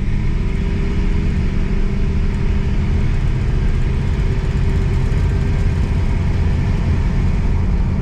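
Oldsmobile Toronado driving at a steady speed, heard from inside the cabin: an even, low rumble of engine and road noise with a steady hum through it.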